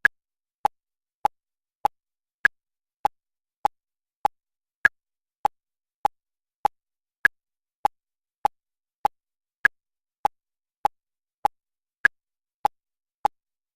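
Short electronic beeps at a steady pace, a little under two a second; every fourth beep is higher in pitch than the three between.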